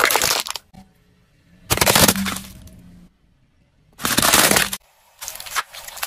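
A car tyre rolling over and crushing plastic toys and other objects: four separate bursts of cracking and crunching, each starting and cutting off suddenly. Plastic snaps and shatters under the wheel's weight.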